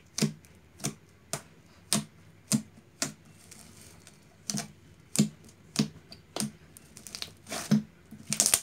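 A large glossy slime squeezed and pressed by hand, making sharp wet clicks and pops about every half second, with a quick cluster of them near the end.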